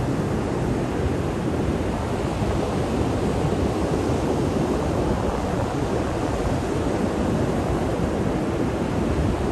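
Surf breaking steadily on a sandy beach, mixed with wind rumbling on the microphone.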